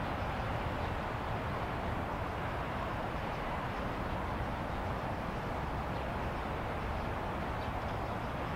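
Steady outdoor city background noise: a constant, even hum of distant traffic, with no distinct events.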